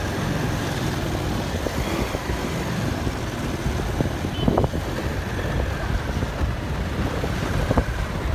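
Motorcycle riding along a road: its engine running under way, mixed with wind buffeting the microphone.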